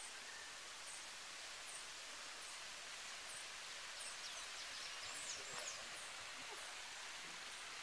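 Faint outdoor garden ambience: a steady hiss with a short, high chirp repeating a little more than once a second, and a brief flurry of bird chirps about five seconds in.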